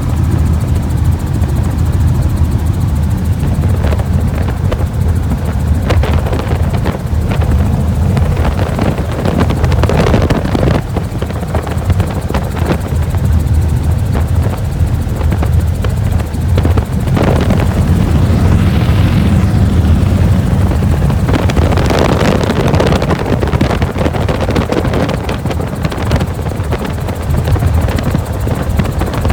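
Helicopter running: a loud, steady rotor-and-engine noise with a fast chopping beat, swelling in places with brief louder rushes of noise.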